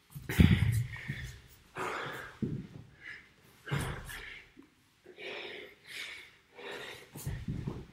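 A man breathing hard from exertion mid-workout, loud panting breaths coming about once a second. A heavy thump about half a second in is the loudest sound.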